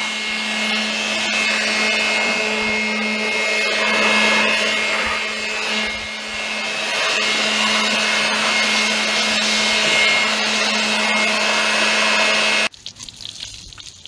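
Corded handheld electric air blower running steadily at full speed with a constant motor hum and whoosh of air, blowing dry dust off a window air conditioner's coils. It cuts off suddenly near the end.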